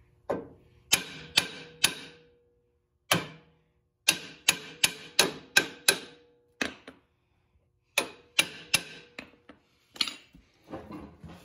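A hammer tapping on steel: about twenty sharp strikes in quick runs with short pauses, each leaving a brief metallic ring. It is the sound of a clamped plow-mount bracket being knocked into line on a garden tractor's frame.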